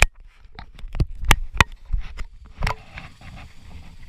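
A run of sharp knocks and bumps on a plastic sit-on-top kayak as it is handled at the water's edge, about half a dozen in the first three seconds, one of them with a short hollow ring.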